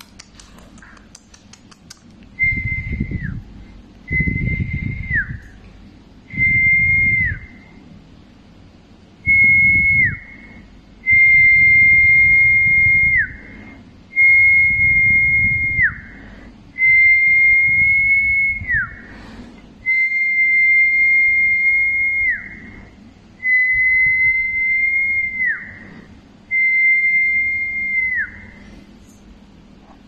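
Whistling: ten long whistles in a row, each held on one steady high note and then dropping sharply in pitch at its end, with short gaps between them.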